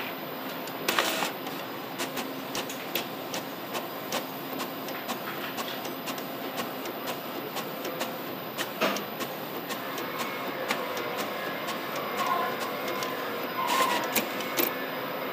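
Laser eye surgery equipment running with a steady mechanical hum, broken by scattered irregular clicks and taps. The loudest clicks come about a second in and near the end.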